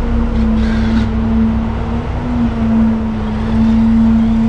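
Engine of construction machinery running at a steady speed, an even hum over a low rumble.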